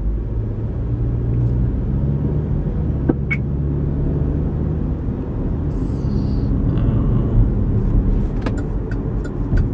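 A car's engine and road noise heard from inside the cabin: a steady low rumble.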